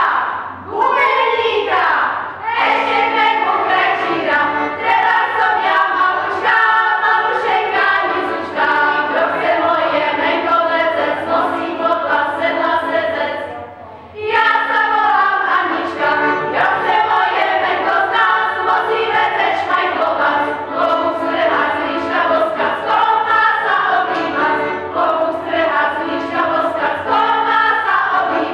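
A group of women singing a folk song together in full voice. They break off briefly about halfway through, then start the next verse.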